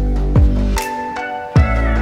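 Background music: held synth notes over deep bass drum hits, two of them, about half a second and a second and a half in.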